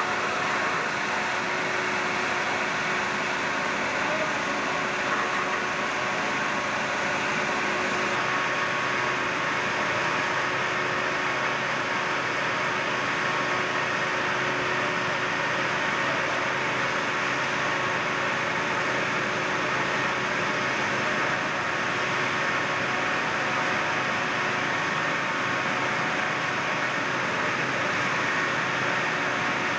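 Steady mechanical drone with an even hiss over it: a fire truck's engine running on the fireground. It holds the same level throughout, with faint steady hums underneath.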